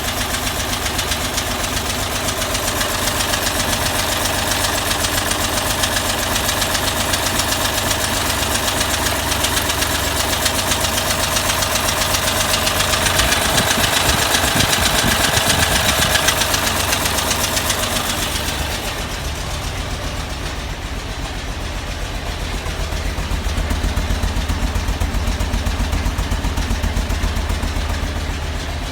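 Toyota FJ40 Land Cruiser's 2F inline-six engine running with an odd rapid ticking from the valvetrain, caused by push rods not properly adjusted. About two-thirds through the sound turns duller.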